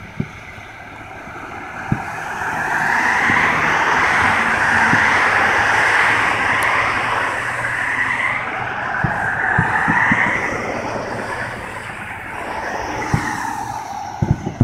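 A vehicle passing by: a rushing noise that swells from about two seconds in, peaks, rises again around ten seconds and then fades.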